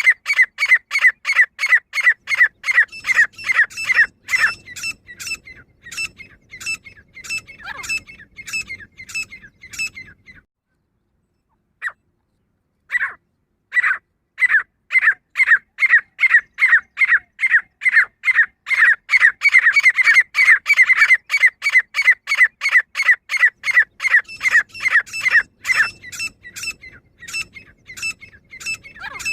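Female grey francolin calling: a fast run of sharp, high repeated notes, several a second. The run fades, breaks off for a couple of seconds apart from two single notes, then starts again loud and eases off near the end.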